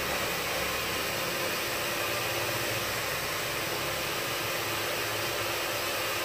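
A steady, even rushing noise, like air from a small blower or fan motor running.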